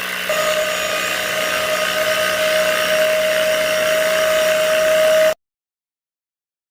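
Small electric motor of a DIY mini borewell drilling machine running with a steady whine. It grows slightly louder, then cuts off abruptly about five seconds in, followed by silence.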